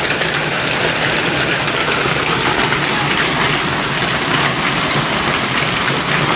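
Rain falling in a steady, dense downpour during a summer thunderstorm.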